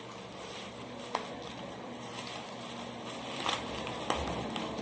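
Packaging being handled while a new car headlight is unwrapped: a faint rustle with a few sharp clicks or taps, one about a second in and two more between three and four seconds in.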